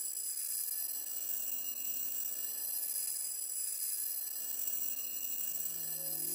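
Electroacoustic music: a steady cluster of sustained high, chime-like tones over a faint grainy texture. About five and a half seconds in, a low pitched tone swells in beneath it.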